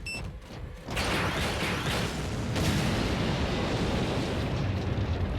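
A short electronic beep, then about a second in a trap's explosion goes off: a loud blast that carries on as a sustained rumble.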